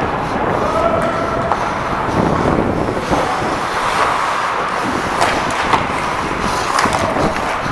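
Ice skates carving and scraping on the rink with wind rushing over a player-worn helmet camera's microphone, and a few sharp clicks partway through.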